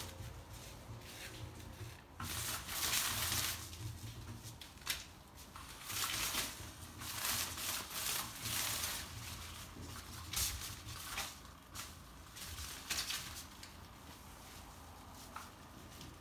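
Maine Coon kitten pawing and clawing at the fabric cover of an electronic spinning cat toy: rustling and scratching in irregular bursts of a second or so, with a few sharp ticks, over a low steady hum.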